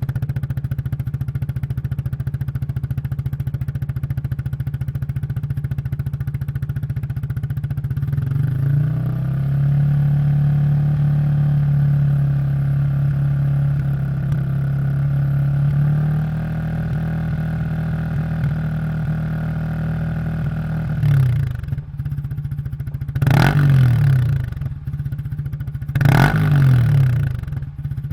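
Yamaha YZF-R15 single-cylinder engine running through a Yoshimura full-system exhaust. It idles steadily, the idle rises about eight seconds in and settles back about eight seconds later, then the throttle is blipped three times in quick, sharp revs near the end.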